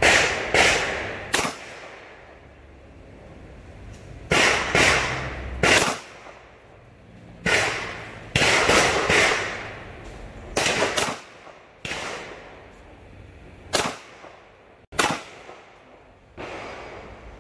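Pistol shots fired one at a time: about fifteen sharp bangs in irregular groups of two or three with pauses between, each trailed by a short echo.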